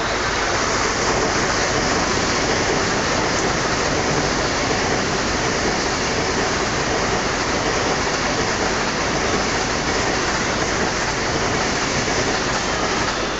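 CRH1B high-speed electric multiple unit passing close by, its wheels on the rails and its rush of air making a loud, steady rushing noise.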